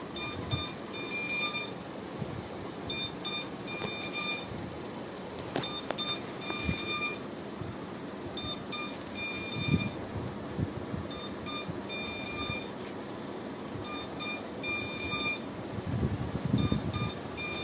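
Electronic buzzer beeping in repeated bursts of rapid, high-pitched beeps, a new burst every second or two, over a low hum with a few soft thumps.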